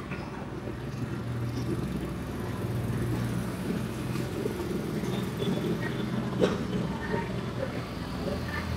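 Steady low rumbling background noise with scattered faint clatter and one sharp click about six and a half seconds in.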